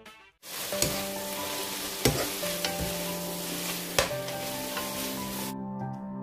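Soybean sprouts and water dropwort sizzling as they are stir-fried in a pan, a wooden spatula knocking against the pan a few times. The sizzle stops shortly before the end.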